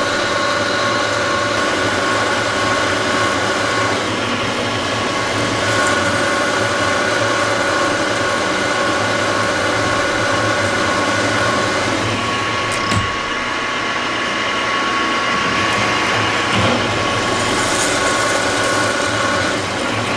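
Milling machine spindle running with a steady gear whine while a 1-inch cutter cuts through a steel block, over a continuous hiss from the air-blast coolant nozzle aimed at the cut, with a few clicks about two-thirds of the way in.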